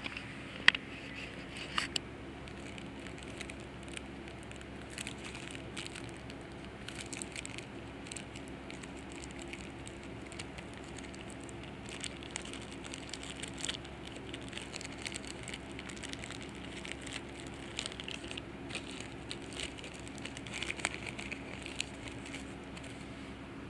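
Crinkling and rustling of foil trading-card booster pack wrappers being torn open and cards being handled, in scattered small crackles and clicks, with a couple of sharper clicks about a second in.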